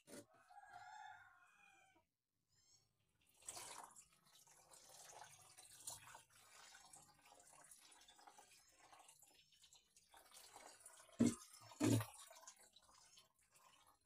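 A rooster crows briefly near the start, then water splashes and drips during hair washing, with two dull knocks about eleven seconds in.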